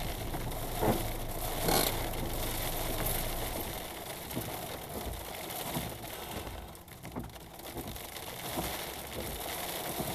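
Small hail and rain hitting the roof and windscreen of a stopped car, heard from inside the cabin as a dense crackle of many small ticks, with a few louder hits in the first two seconds. The car's engine idles underneath at first, and the windscreen wipers sweep.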